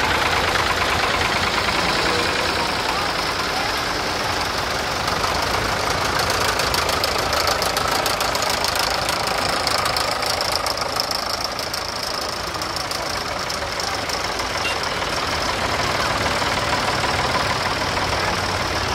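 Several vintage Ford and Fordson tractor engines running at low speed as the tractors drive slowly past one after another. The engines make a steady, fast, even clatter that is strongest about halfway through.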